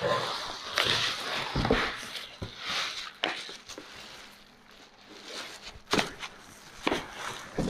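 Packaging being handled: rustling through the first few seconds, then a handful of sharp knocks and clicks.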